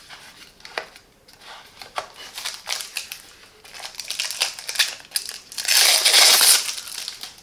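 Plastic packaging crinkling and rustling as the parts are handled, with scattered clicks of plastic pieces and a loud crinkle lasting about a second near the end.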